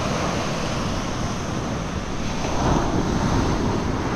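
Sea waves washing ashore, with wind rumbling on the microphone and a slight surge about two-thirds of the way through.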